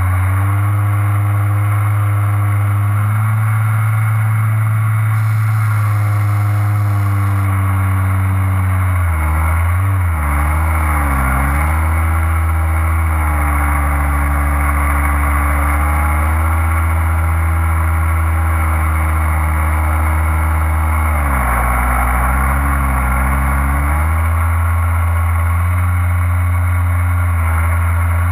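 Engine of a low-flying light aircraft running steadily, its pitch dropping and coming back up twice, about ten seconds in and again past twenty seconds, as the throttle is eased and reopened.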